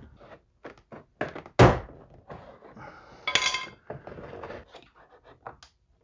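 Plastic retaining clips of a 2013 Mercedes-Benz C300 front door trim panel being pried out with a trim tool: scattered clicks and knocks of plastic against the door, with one sharp thunk about one and a half seconds in.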